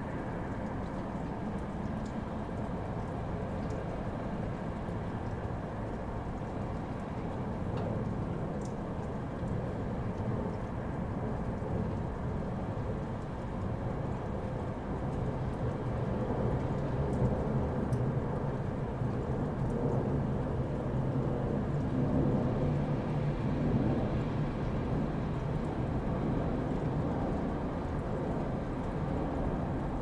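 Continuous deep rushing noise from a sleep white-noise track, weighted toward the low end with little hiss. It grows slightly louder about halfway through.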